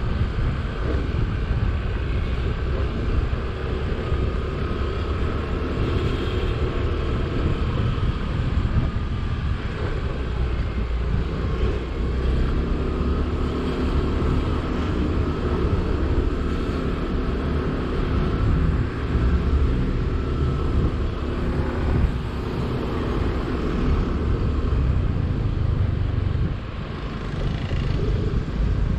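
Yamaha Neo scooter riding along, its small engine running steadily under the rumble of road and wind, with a faint whine that slowly rises and falls in pitch as the speed changes.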